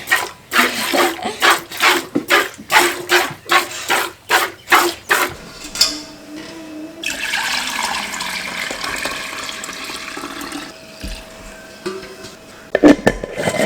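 A cow being milked by hand, the milk squirting into a pail in quick even squirts, about two or three a second, for roughly the first five seconds. After a pause comes a steady rush of running liquid lasting about four seconds, and a few louder knocks near the end.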